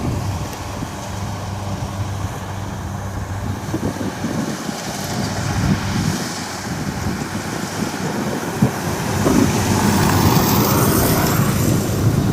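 Kubota DC60 combine harvester's diesel engine running steadily under load while cutting rice. A louder rushing noise builds up about nine seconds in.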